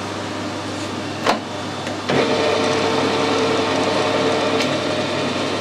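A click about a second in, then a metal lathe with a collet chuck is switched on about two seconds in, spinning up with a short rising whine and then running steadily with a hum.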